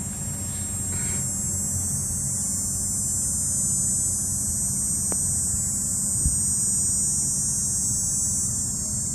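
Steady high-pitched buzzing of insects over a steady low hum, with a faint click about five seconds in.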